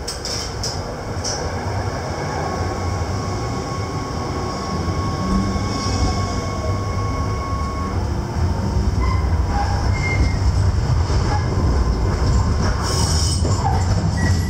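Düsseldorf Rheinbahn tram pulling away from a stop and gathering speed, heard from inside the front of the tram: the running rumble of the motors and wheels on the rails grows steadily louder, with a thin steady whine over it. A few sharp clicks come in the first second or so.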